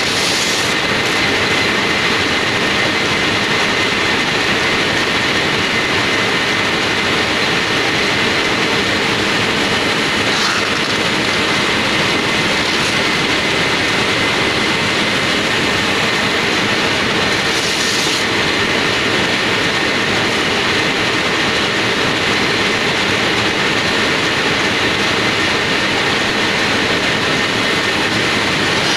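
Industrial machine running a sheet of material over its rollers: a loud, steady mechanical rush with a faint steady whine, broken by a few short hisses.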